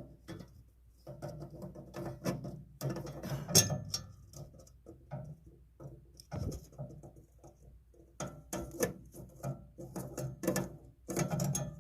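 Irregular small clicks, taps and scrapes of a screwdriver working a screw out of a boiler's burner gas-supply fitting, with metal parts being handled.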